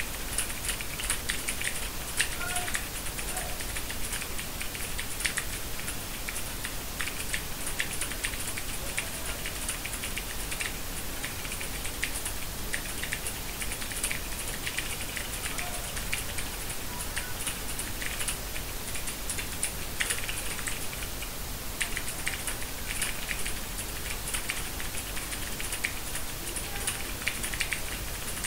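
Typing on a Logitech G413 mechanical keyboard with Romer-G switches: a quick, uneven run of key clicks over a steady hiss, with a brief pause about three quarters of the way through.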